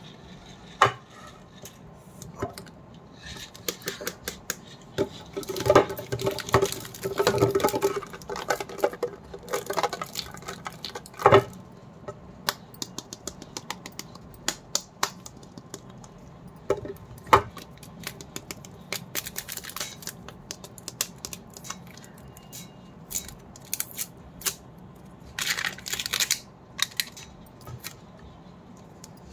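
Hard plastic surprise-ball capsules handled by hand: scattered sharp clicks and knocks of the plastic shells, with stretches of crinkling as the plastic shrink-wrap is torn off and a capsule is pulled open into halves.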